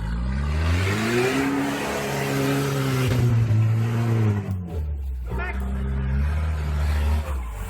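An off-road vehicle's engine revving up hard, holding high revs for about three seconds, then dropping back to a lower steady speed about halfway through, with a rushing noise alongside while it is revved.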